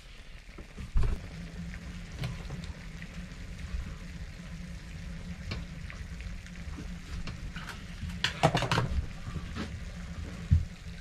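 Lamb mince and gravy sizzling in a frying pan on a gas hob, a steady low frying sound. Over it come a knock about a second in and scattered clicks, with a quick run of sharp clicks about eight and a half seconds in, as the gas oven below is opened and lit.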